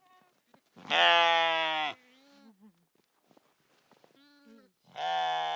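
Goat bleating: two loud bleats of about a second each, one about a second in and one near the end, with fainter short calls between them.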